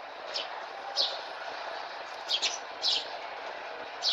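Eurasian tree sparrows chirping: short, high single chirps, several a second apart, with a quick pair about two seconds in. Beneath them is a steady background noise like distant traffic.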